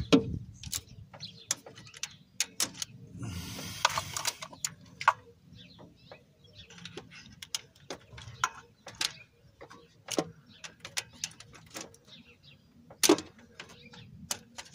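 Hand ratchet and socket working a grimy bolt, clicking in irregular short runs, with a brief rasping scrape about four seconds in and one louder metallic knock near the end.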